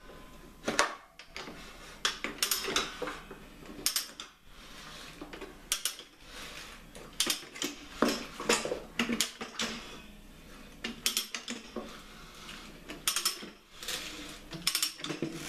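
Irregular metallic clinks and clacks from a Rabaconda manual motorcycle tire changer as its mounting bar is worked around a BMW GS cross-spoked wheel, levering the new tire's bead onto the rim.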